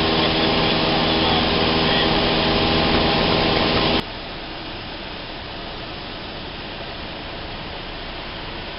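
Single-engine light aircraft's piston engine and propeller running steadily with an even hum, heard from inside the cabin. About four seconds in the sound cuts abruptly to a quieter, steady cabin engine noise.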